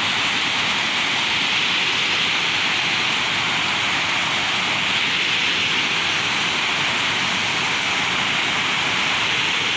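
Waterfall's falling water rushing in a steady, unbroken hiss.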